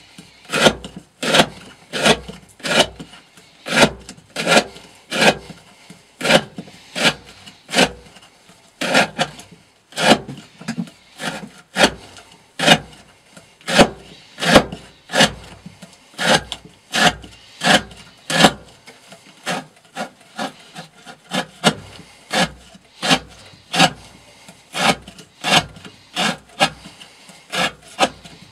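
A S35VN steel knife blade carving shavings off the edge of a wooden board, a scraping cut repeated at about two strokes a second. These are repeated cuts to wear down the edge in an edge-retention test.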